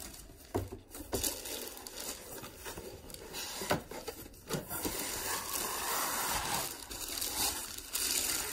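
Cardboard packaging being handled: cardboard scraping and rustling, with a few sharp knocks, and a longer stretch of rustling about five seconds in.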